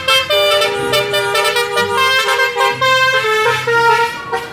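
Telolet bus horn, the multi-trumpet musical air horn of Indonesian buses, playing a tune of held, stepping notes, with background music underneath.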